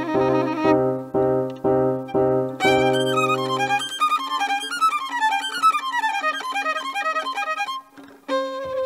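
Violin playing over a low accompaniment that pulses about every two-thirds of a second. About three seconds in, the violin breaks into a fast run of notes that sweeps down and back up, then stops briefly near the end before a new phrase begins.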